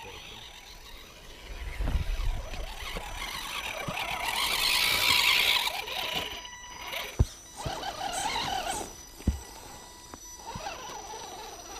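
Axial SCX10 and Wraith radio-controlled rock crawlers climbing a granite boulder: electric motor and gear whine with tyres scrabbling on the rock, loudest about four to six seconds in. Two sharp knocks come later, as the rigs bump against the stone.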